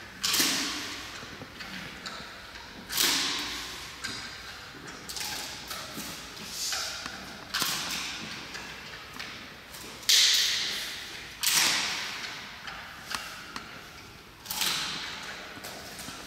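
Giant panda biting into and splitting a bamboo stalk: a sharp crack every couple of seconds, about seven in all, each followed by crunchy tearing that fades over about a second, with softer chewing crackles between.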